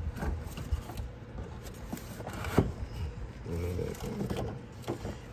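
Parts being pushed and slid into their mounting holes behind a radiator by gloved hands: scattered light clicks, knocks and rubbing, with one sharper click about two and a half seconds in.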